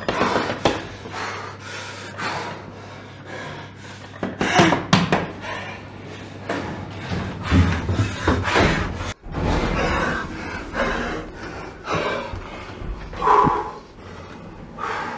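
Knocks and thumps inside a small elevator car as a man bangs at the buttons and struggles, over a low steady hum.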